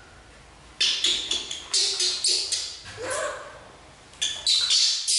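Baby monkey giving a rapid series of short, shrill squeals and cries, beginning about a second in, with one longer cry that bends up in pitch about three seconds in.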